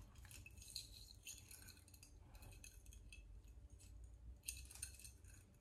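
Faint, irregular clinking of a metal necklace chain and clasp being handled and hooked at the back of the neck, in small clusters of light ticks.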